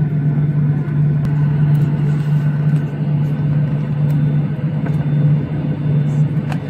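Steady low drone inside the cabin of a Boeing 737-800 jet airliner: engine and airflow noise holding an even pitch, with a few small clicks near the end.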